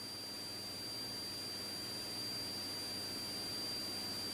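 Faint steady hiss of an open radio channel between police radio transmissions, with a thin, high, steady whine running through it.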